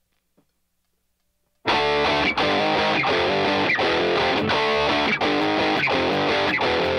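Near silence, then background music starts abruptly about one and a half seconds in: electric guitar strumming chords over a steady beat.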